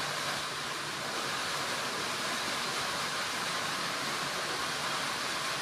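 Steady rushing noise, even and unbroken, with no distinct events in it.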